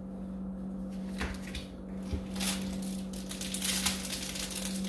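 Plastic packaging crinkling and rustling in irregular handfuls as lab items are handled out of a cardboard box, busiest in the second half. A steady low hum runs underneath.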